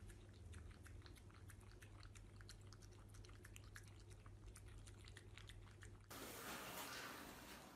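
French Bulldog puppy eating from a plastic bowl: faint, rapid chewing and lip-smacking clicks. About six seconds in they give way to a steady hiss.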